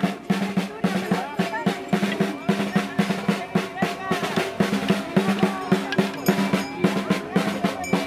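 A hand-held drum beaten in a quick, steady rhythm, with people's voices over it.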